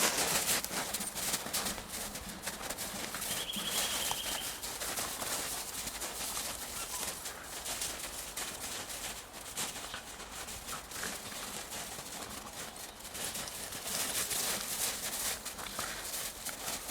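Footsteps on the forest floor, a continuous irregular run of small steps and scuffs as people and dogs walk. About three seconds in, a short rapid bird trill.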